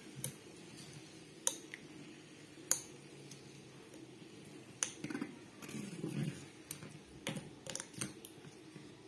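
Homemade Beyblade spinning tops clacking against each other and against the rim of the plastic-lid stadium: scattered sharp clicks, about a second apart at first, coming closer together in the second half.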